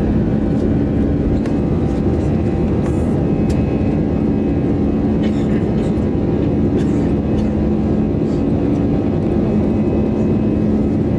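Airbus A320 jet engines at climb power heard from inside the passenger cabin: a steady roar with a low droning hum.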